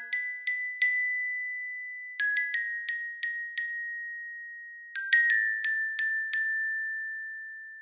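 Background music of high, bell-like mallet notes, like a glockenspiel: three short runs of quick struck notes, each run left to ring out and fade.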